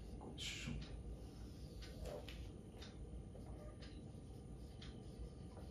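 Faint marker pen strokes on a whiteboard as a question is written: a handful of short, irregularly spaced scratchy sounds.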